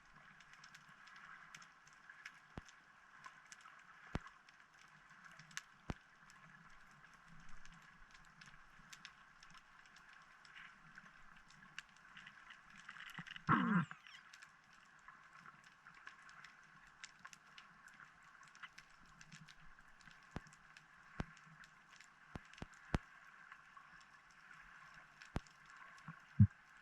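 Underwater ambience picked up through a camera housing: a steady faint hiss with scattered sharp clicks, a louder half-second sound with a wavering pitch about halfway through, and a sharp click near the end.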